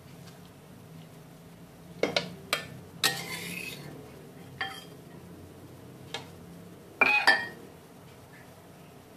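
Metal ladle clinking and scraping against a glass cooking pot while stirring a chili-paste broth. Scattered sharp clinks, in small clusters around two, three and seven seconds in, with a brief scrape after the one at three seconds.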